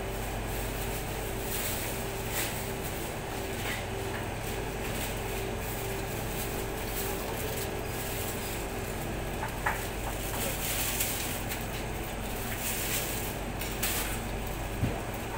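Steady room hum from a motor or fan, with occasional light knocks and scrapes as a knife works through a cut of pork on a cutting board.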